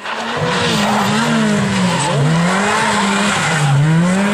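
Ford Fiesta rally car's engine running loud at high revs through a corner. Its pitch sags and climbs back up twice.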